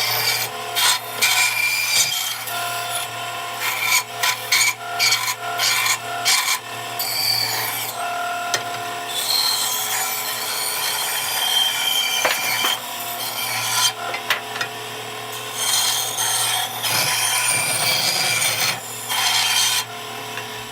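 Bandsaw running and cutting oak flooring: the blade rasps through the wood in a series of cuts, the noise rising and falling, over the steady hum of the motor. The saw runs normally on its newly fitted drive belt.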